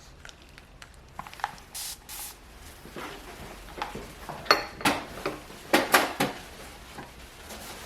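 Two short sprays from a water spray bottle about two seconds in, then a run of sharp clattering knocks of hard objects being handled, the loudest between about four and a half and six and a half seconds.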